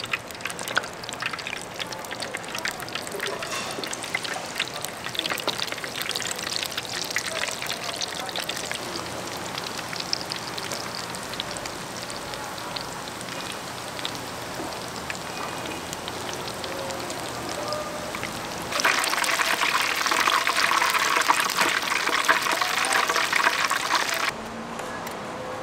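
Battered food deep-frying in hot oil, a dense sizzling crackle. About three-quarters of the way in it turns much louder for some five seconds, then drops back suddenly.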